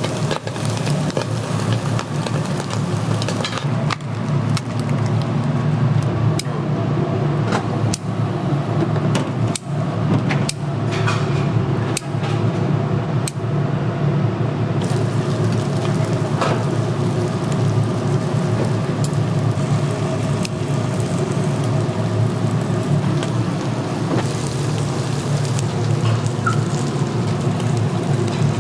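Pork sizzling on a grill over a steady low hum, with scattered short clicks and taps.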